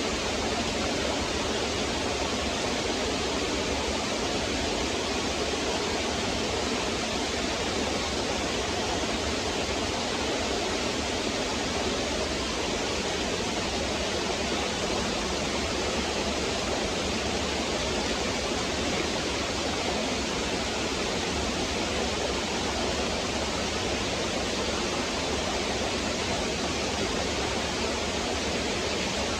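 Stream water flowing and splashing over rocks, a steady rushing with no breaks.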